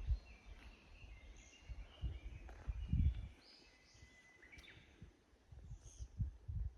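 Small birds chirping and calling, with a few short whistled notes, over irregular low rumbles and thumps, the loudest about three seconds in.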